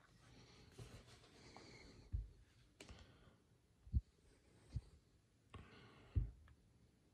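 Quiet handling sounds of a cast brake caliper being turned in the hands while its rubber piston dust boot is pressed into place: four dull bumps, a sharp click a little before the middle, and soft rubbing and scraping.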